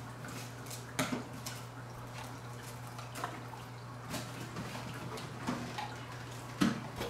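Scattered clicks and light knocks of machine parts and packaging being handled during unpacking, the sharpest knock near the end, over a steady low hum.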